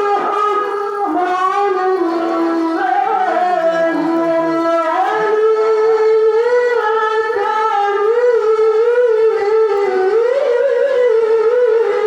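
A male qari reciting the Qur'an in melodic tilawah style, holding long, high notes with wavering ornamentation.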